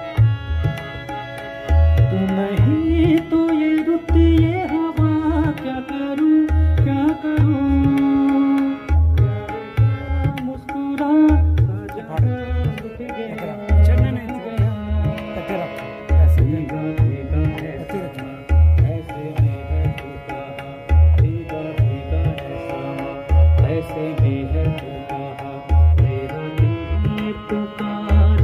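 Live music on an electronic keyboard: a steady tabla-style drum pattern under a melody, with a man singing into a microphone.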